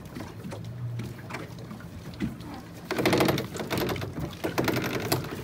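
Anchor chain rattling and clinking as it is hauled up by hand over a small boat's bow, starting about three seconds in after quieter rope-handling sounds.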